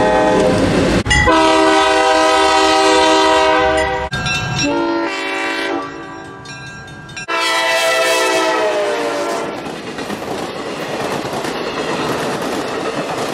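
A string of diesel locomotive air-horn blasts, each a steady chord of several tones, cut abruptly one after another. The last blast sags slightly in pitch as the train passes and gives way to the rumble and clatter of railroad cars rolling by.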